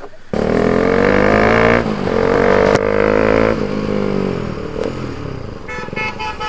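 Bajaj Pulsar RS200's single-cylinder engine revved hard through an aftermarket Akrapovic full-system exhaust. It starts suddenly, holds two loud revs, then drops back down over a couple of seconds.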